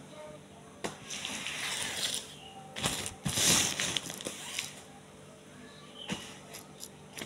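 A cloth wiping and rubbing across a wet plastic table cover in swishing strokes, loudest about three seconds in, with a few light knocks on the table.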